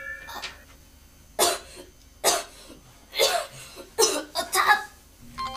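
A person coughing, about six dry coughs spaced roughly a second apart, the last few coming closer together: the coughing of someone ill with a fever.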